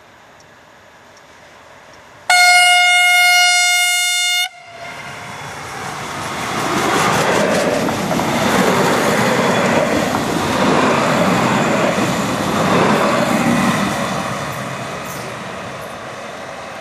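A DB class 650 diesel railcar sounds its horn in one steady blast of about two seconds that cuts off sharply. Then a train of three coupled class 650 railcars passes close by, its engine and wheel noise with rail clatter building to a loud peak and slowly fading.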